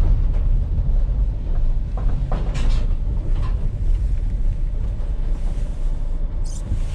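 Van being driven, heard from inside the cab: a steady low engine and road rumble, with a few short clunks or rattles about two and a half seconds in.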